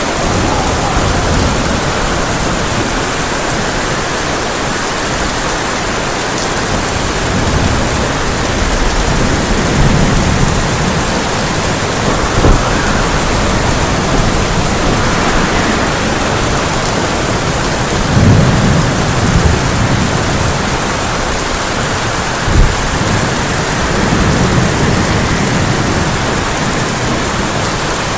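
Heavy rain falling steadily on a tin roof, with low rolls of thunder swelling several times and two sharp knocks, about twelve and twenty-two seconds in.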